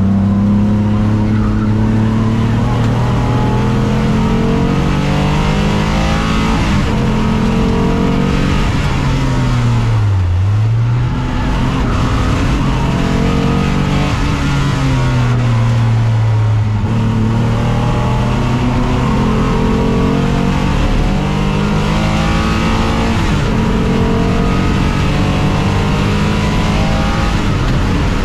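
Alfa Romeo 156's 3.2-litre V6 race engine heard from inside the cockpit, running hard at racing speed. Its pitch keeps climbing and falling with the gear changes, with a sharp drop and recovery about ten seconds in and another fall around sixteen seconds.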